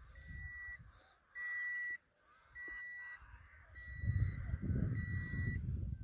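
An electronic beeper sounds a steady high tone over and over, each beep lasting about two-thirds of a second and repeating roughly every 1.2 seconds. From about four seconds in, a low rumbling noise rises beneath it.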